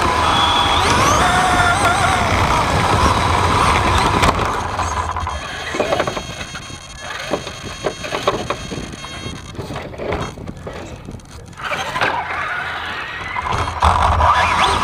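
Onboard sound of an RC buggy on a dirt track: motor whine rising and falling with the throttle over tyre and chassis rattle. About four seconds in it drops away as the buggy comes to a stop against the track barrier, leaving scattered knocks and clicks, and the motor picks up again near the end.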